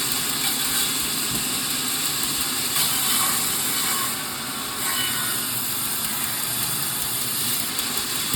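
Firewood-processing machinery running with a steady mechanical noise that dips briefly about four seconds in.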